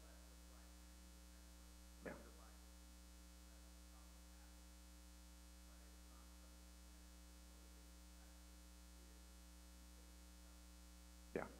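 Near silence with a steady electrical hum, under a faint, distant voice of an audience member speaking away from the microphone. A short knock comes about two seconds in and another just before the end.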